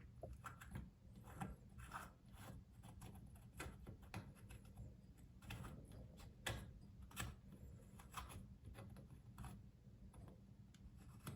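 Faint, irregular small clicks and ticks of a faucet part being threaded down by hand to hold a Moen bathroom faucet cartridge in place.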